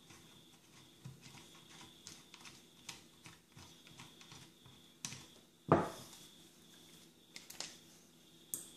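Small metallic clicks and taps as a handsaw's brass handle screws and split nuts are worked loose and set down, with one heavier knock about six seconds in.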